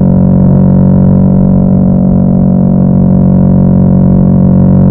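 Yamaha YZF-R3's parallel-twin engine through an M4 aftermarket exhaust, heard on board while riding at steady revs. A loud, even drone that holds one pitch.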